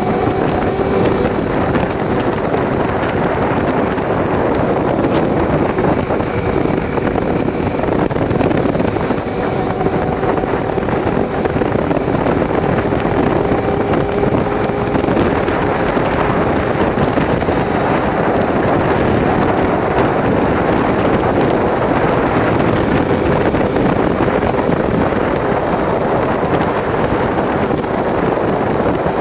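Motorcycle engine running steadily while riding, mostly buried under heavy wind buffeting on the microphone.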